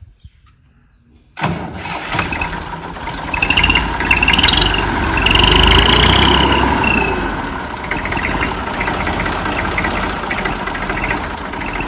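IMT 533 tractor's three-cylinder diesel engine starting about a second and a half in, then running, loudest for a few seconds before settling. The fan belt has just been tightened, and there is no belt noise.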